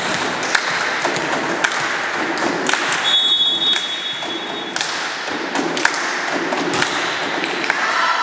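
Volleyball referee's whistle, one blast of almost two seconds about three seconds in, signalling the serve. Scattered thuds and taps of balls and feet on the hall floor run throughout.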